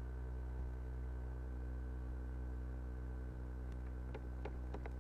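Steady electrical hum: a strong low buzz with several fainter steady tones above it, unchanging throughout. A few faint clicks come near the end.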